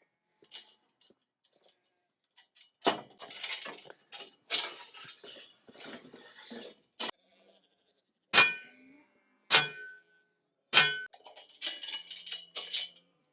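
Metal rattling and clattering, with three loud ringing metal clanks evenly spaced about a second apart midway through.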